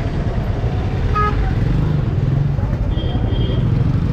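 Motorcycle engine running at low speed amid street traffic, a steady low rumble, with a brief high-pitched beep about a second in.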